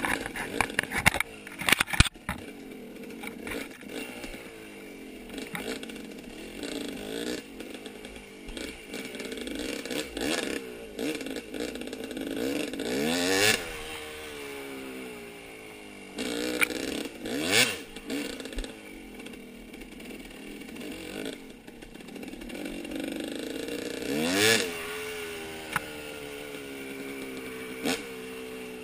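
Yamaha YFZ450 ATV's single-cylinder four-stroke engine running at low speed on a trail, with a few quick revs that rise and fall. There are knocks and rattles in the first couple of seconds.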